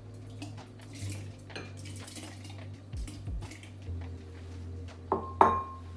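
Kitchen clatter of dishes and utensils, with scattered knocks and taps, as fruit is put into a drink container. Two sharp clinks a little past five seconds in, the second ringing briefly.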